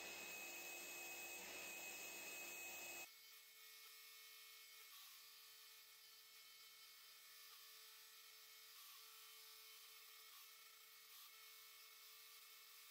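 Near silence: a faint steady hiss that cuts suddenly about three seconds in to a quieter room tone with a faint steady hum.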